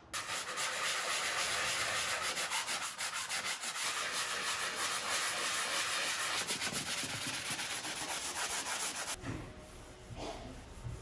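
Hand-sanding dried joint compound on a drywall patch, a scratchy rasp in quick repeated strokes. About nine seconds in it turns softer and lower.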